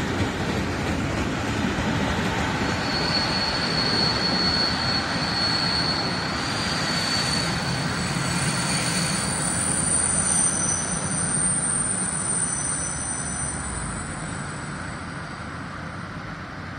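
Freight train of covered wagons rolling past on the rails with steady running noise, and thin high-pitched squeals coming and going through the middle. The noise fades over the last few seconds as the end of the train moves away.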